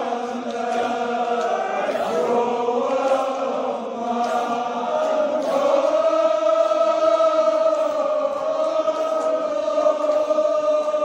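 A group of men chanting a Kashmiri marsiya together in unison. From about halfway through, the notes are drawn out long and level.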